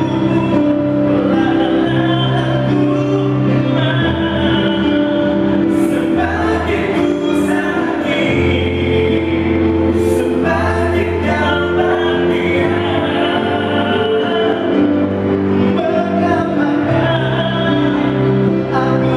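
A man singing karaoke into a microphone over a recorded backing track, amplified loud through the stage sound system.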